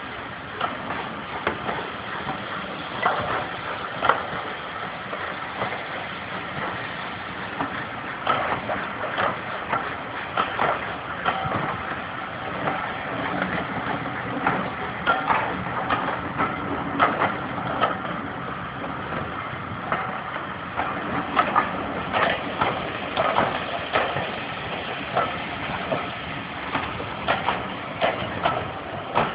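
Passenger coaches rolling slowly past: a steady rumbling clatter of wheels on the track, with irregular clicks and clunks.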